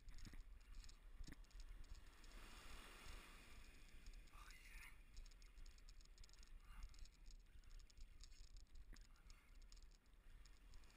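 Faint, muffled low rumble of ocean surf, with many small clicks and scratches throughout.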